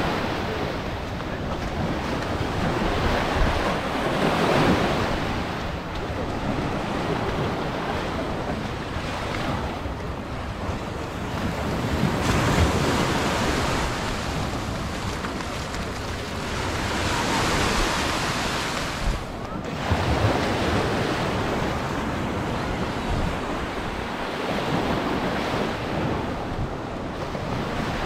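Sea waves breaking on a beach, the wash of surf swelling and easing every few seconds, with wind buffeting the microphone.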